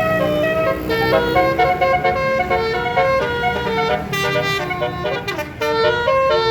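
Tour bus's 'basuri' telolet horn playing a fast melody of short stepped notes, over a low rumble.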